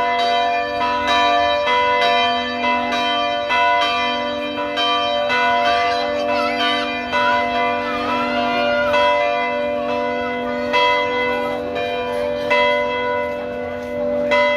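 Several church bells ringing together in a peal, struck over and over at a steady pace, their tones overlapping and ringing on between strikes.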